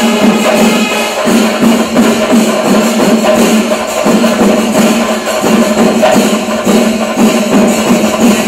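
Festival percussion music: drums beating densely with cymbals clashing, over a held pitched note that breaks off and comes back a few times.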